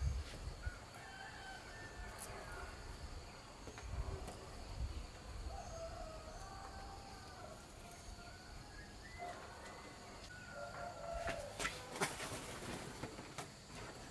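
Rooster crowing faintly, twice, the second crow a few seconds after the first, with a few sharp clicks near the end.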